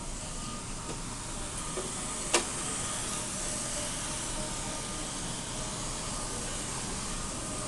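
Steady hiss of large-store ambience, air handling with faint distant background sound, and one sharp click about two seconds in.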